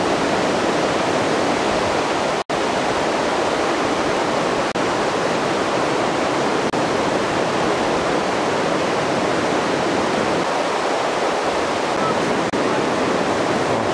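Steady rushing noise of running water, even and unbroken apart from a momentary dropout about two and a half seconds in.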